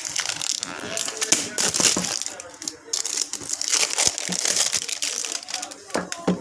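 Packaging of a new phone box crinkling and rustling with many small crackles as it is handled and unwrapped.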